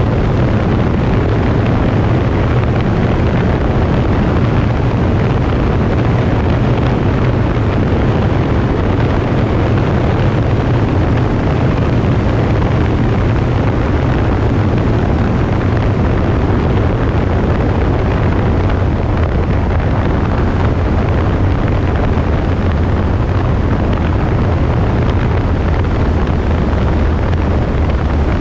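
The engine of a 1970 Cessna Cardinal 177B, a four-cylinder Lycoming, running steadily at approach power, with wind noise over it.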